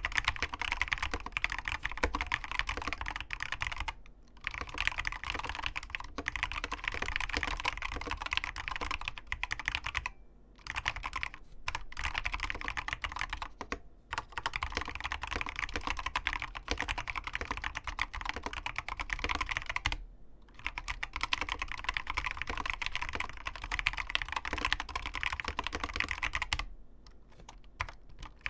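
Typing on an ABKO Hacker K660 keyboard with Kailh Box optical linear switches and crystal OEM-profile keycaps: a rapid, steady stream of keystrokes, with brief pauses about four, ten, fourteen and twenty seconds in and a longer lull near the end.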